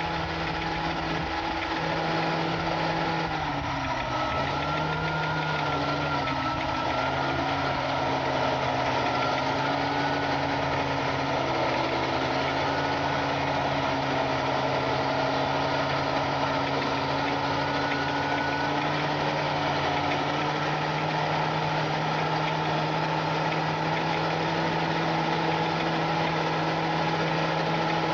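John Deere 8260R tractor's six-cylinder diesel engine running steadily under load while pulling a disc harrow through the field. The engine note dips briefly a few seconds in, then holds steady.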